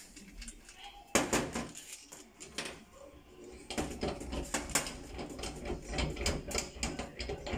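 Handling noise of brass gas fittings and a gas valve body: a run of irregular clicks, knocks and clinks as the parts are picked up and set down on the work surface.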